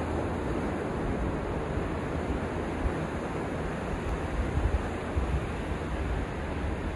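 Ocean surf washing onto a sandy beach, a steady rushing noise, with wind buffeting the microphone in low rumbling gusts about halfway through.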